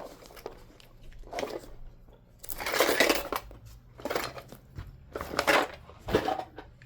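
Small metal tools and a padlock being handled on a work surface: several short bursts of clinking and rattling, the longest about halfway through.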